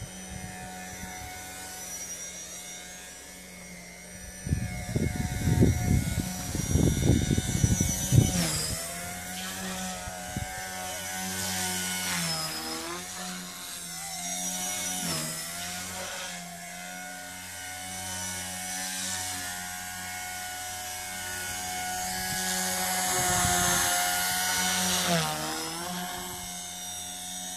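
Blade mCP X BL micro collective-pitch RC helicopter in flight: a steady high whine from its motor and rotors, its pitch sagging and recovering several times as it manoeuvres. For a few seconds near the start a louder low, rough rumbling sits under it.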